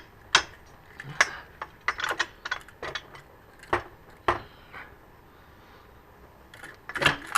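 Irregular sharp metallic clicks and clanks as a motorcycle triple-tree front stand is handled and fitted. The sounds go quiet for a couple of seconds after the middle, then come as a cluster near the end.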